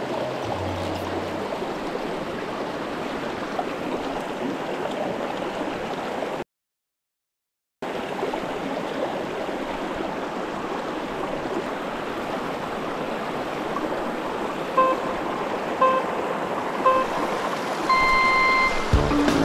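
Steady rush of a small mountain stream tumbling over rocks. All sound cuts out for about a second a third of the way in. Near the end come three short electronic beeps about a second apart, then one longer beep.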